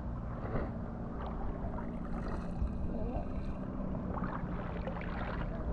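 Longtail boat engine running steadily at low revs, a constant low hum, with faint water splashes over it.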